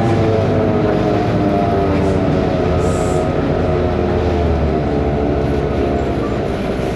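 Cummins ISBe Euro 5 turbo-intercooled diesel engine of a BMC Belde city bus running under way, a loud, steady engine note that sags a little in pitch late on. It is the engine sound the uploader calls faulty.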